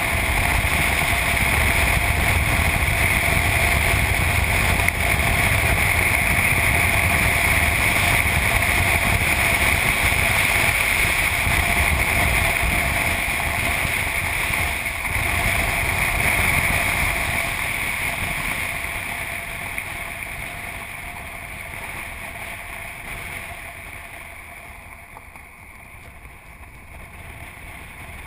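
A Subaru driving at speed, heard from a camera mounted on the outside of the car: a steady rush of wind and tyre noise over the engine. About two-thirds of the way through the noise fades steadily as the car slows down.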